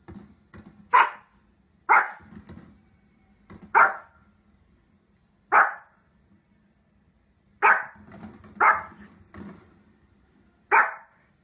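A small dog barking: about seven sharp, loud barks spaced one to two seconds apart, with softer short barks in between.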